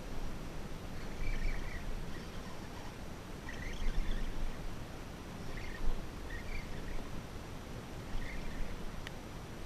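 Outdoor ambience: a steady low rumble with about five short, high chirps spread through it, like bird calls.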